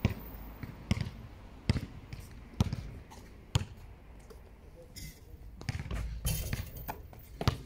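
Basketball being dribbled, with a sharp bounce roughly once a second for the first few seconds, then a noisier stretch and one more bounce near the end.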